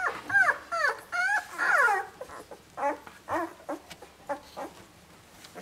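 Ten-day-old Labrador puppies whimpering: a quick string of high cries that rise and fall in pitch, loudest and closest together in the first two seconds, then shorter and fainter.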